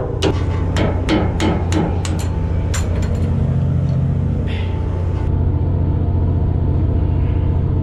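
A hand hammer strikes a rusted steel fitting on a trawl door's bail again and again, about eight sharp metal blows in the first three seconds, then stops. A steady low hum of the boat's machinery runs underneath.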